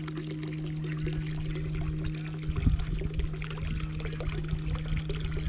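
Water pouring and splashing, with a steady low hum underneath and heavier low thumps from about halfway through.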